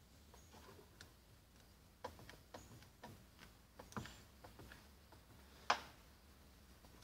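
Faint, scattered clicks and light taps from hands working at a car door's window frame while fitting tint film, with one sharper click about three-quarters of the way through.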